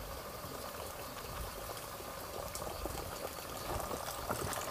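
Spring water running and splashing steadily from a mountain water source.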